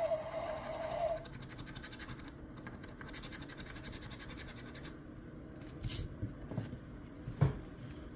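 Scratch-off lottery ticket being scratched, the coating scraped off in a quick run of rapid strokes, then a few single louder scrapes near the end. A brief steady tone sounds in the first second.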